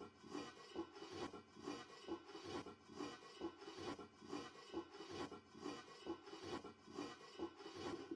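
A rhythmic scraping, a little over two strokes a second, starting suddenly out of silence and keeping an even pace.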